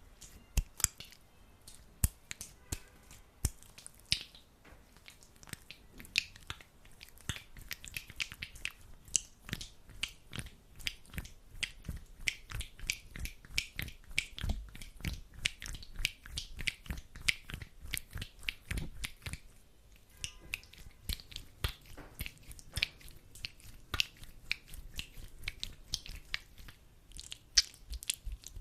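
Hands rubbing sticky aloe vera gel together: a dense, irregular stream of sticky clicks and smacks.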